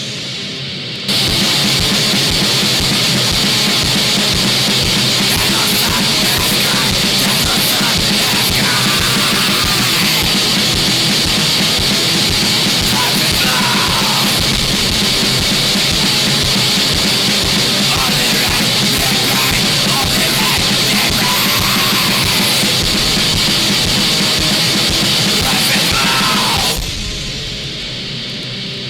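Harsh noise music: a loud, dense wall of distorted noise with wavering, squealing feedback tones. It cuts in about a second in and drops back to a quieter passage near the end.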